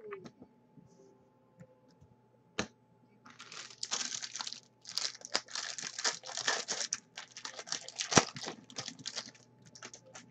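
Foil wrapper of a football trading-card pack being torn open and crinkled: a run of crackling rustles lasting several seconds, with a sharp tick a couple of seconds in and another near the end.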